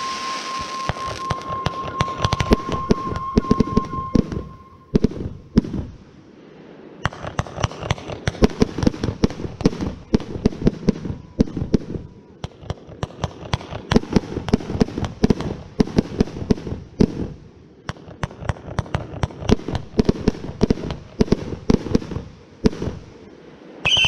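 Aerial fireworks crackling: dense, rapid runs of crackling pops from bursting crackle stars, breaking off into short lulls several times. A steady high tone runs through the first four seconds or so.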